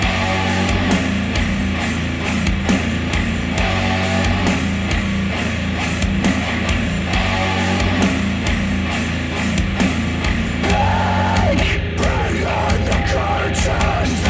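Rock music with a steady drum beat, played back through a pair of KEF Q350 bookshelf speakers driven by an Audiolab 6000A integrated amplifier. A phrase repeats about every three and a half seconds.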